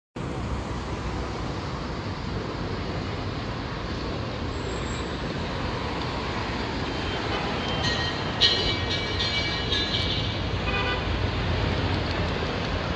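Steady city traffic noise, with a high-pitched toot starting a little past eight seconds in and lasting about two seconds.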